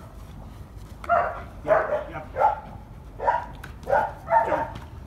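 A young shepherd-type dog barking repeatedly, about eight sharp barks roughly half a second apart, starting about a second in. It is demand barking for the rubber Kong ball toy the handler is holding.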